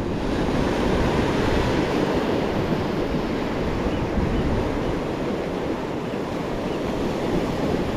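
Small ocean waves washing in over the shallow reef and sand at the water's edge, a steady surf rush, with wind on the microphone.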